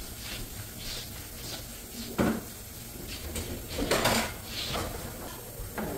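Repeated swishing strokes of a wipe being rubbed over a wooden tabletop, with a sharp knock about two seconds in and a short clatter around four seconds, like a drawer or cupboard shutting.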